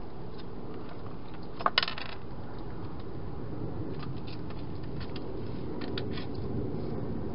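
A wild hedgehog moving and feeding inside a clear plastic feeding box: two sharp clicks close together about two seconds in, then scattered lighter clicks, over a steady hiss.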